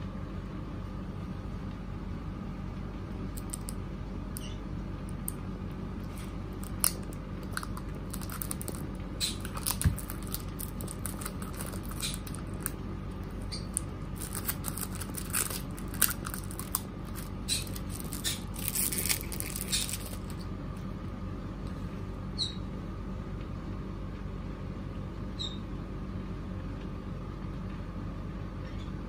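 Thin plastic protective film crinkling as it is peeled off a hard phone case, with small clicks and taps from handling the case. The crinkling is densest through the middle and fades out before the end, over a steady low hum.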